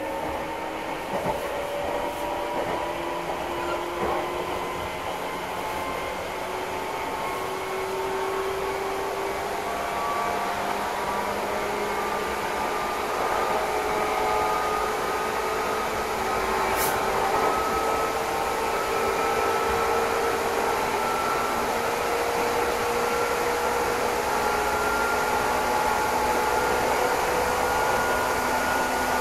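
Electric commuter train heard from inside the carriage, its inverter and traction motors whining in several tones that climb slowly in pitch as it picks up speed, over a steady running hiss.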